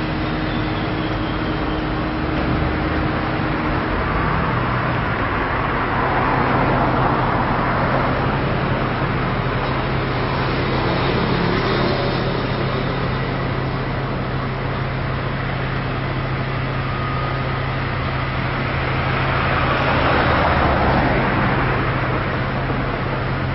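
Motor vehicle traffic with an engine running steadily. The noise swells twice, about seven seconds in and again near the end.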